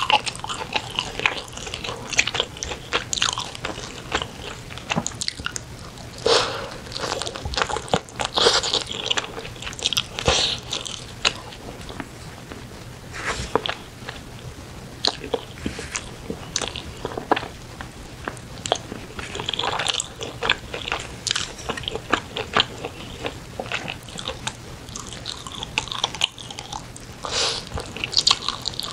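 Close-miked eating of spicy braised chicken: wet chewing and biting with many irregular quick clicks, in dense clusters throughout.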